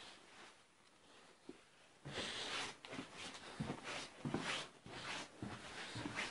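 Handling noise of thin abrasive cut-off discs in a gloved hand: irregular scraping and rustling with light knocks, starting about two seconds in.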